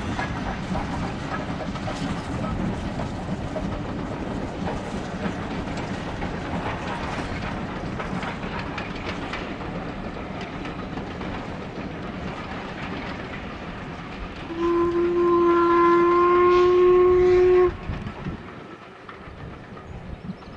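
Steam-hauled passenger train running past, a steady rumble and rail clatter of locomotive and coaches slowly fading as it draws away. About three-quarters of the way through, the locomotive's whistle gives one long, loud blast of about three seconds that cuts off sharply.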